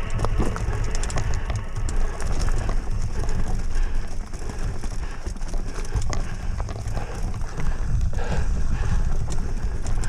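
Fat bike rolling fast over a rough, leaf-covered dirt trail: a steady rumble of wind on the mic with irregular clattering and crunching as the tyres hit rocks, roots and dry leaves.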